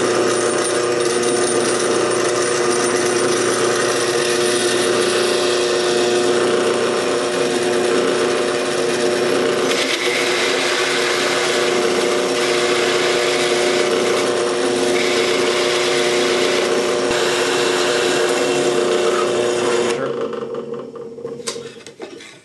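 Drill press running with a 1 5/8-inch hole saw, the steady motor hum joined by a harsher cutting sound from about ten seconds in to about seventeen seconds as the saw bores through the wooden board. Near the end the drill press is switched off and runs down.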